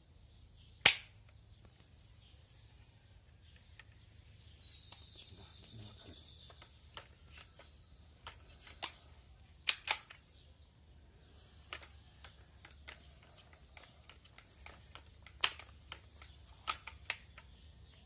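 Shots from a Barra 1866 Cowboy lever-action CO2 BB rifle and BBs striking hanging metal targets: one sharp crack about a second in, the loudest, then a string of smaller sharp clicks spread through the rest, some in quick pairs. A brief high ringing tone sounds around five seconds in.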